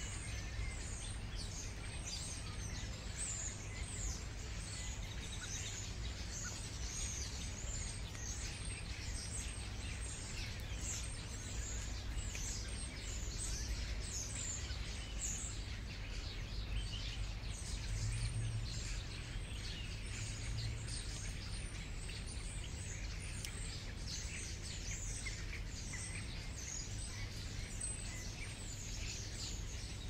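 Many birds chirping throughout in quick, mostly downward-sweeping calls, over the steady low rush of a waterfall.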